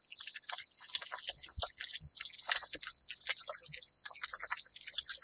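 Eggs frying in a wide, shallow metal pan: a steady sizzle of hot fat with many small, quick pops and spatters.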